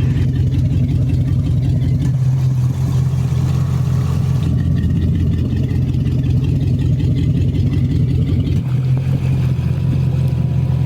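A MerCruiser 350 (5.7 L) V8 sterndrive engine idling steadily, with no revving, fitted with Corsa electric exhaust diverters (captain's calls). Its exhaust note changes a few times, about two, four and a half and eight and a half seconds in, as the diverters switch the exhaust between the quiet underwater route through the drive and the loud outlets above the water.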